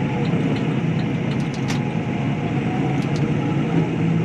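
Tractor engine running steadily, heard from inside the cab while towing a loaded trailer on the road, with an even low hum.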